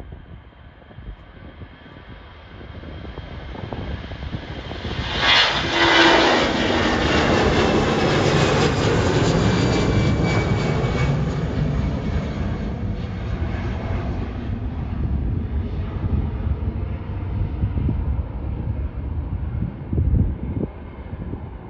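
Jet airliner's engines passing close by: the noise builds over a few seconds and peaks about five seconds in, with a high whine falling in pitch as it goes past, then a loud, steady low rumble that carries on.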